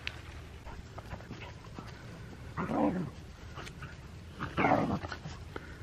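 A dog barking twice, two drawn-out barks about two seconds apart.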